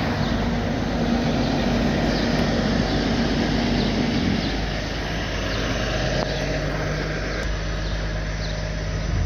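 Heavy-duty tow truck's diesel engine running steadily, its hum dropping to a lower pitch about halfway through.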